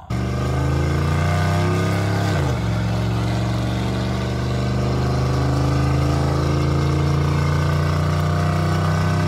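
Engine of an OBS Chevrolet pickup truck running steadily, with a brief dip in pitch about two and a half seconds in.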